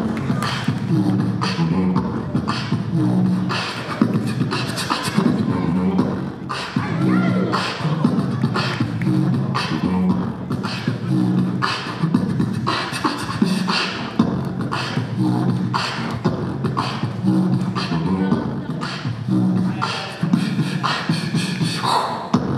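Live beatboxing through a microphone and PA: a steady beat of mouth-made kick and snare hits over repeated low sung bass notes, providing the rhythm for a breaking battle.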